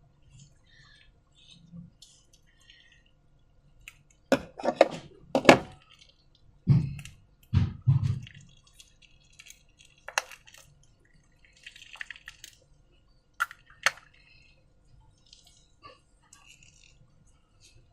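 Slime being squished and handled: a few sharp wet clicks and smacks, then two low squelching thuds, then scattered clicks.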